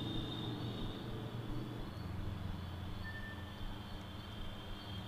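Steady low background hum with a faint high whine above it, and no distinct event.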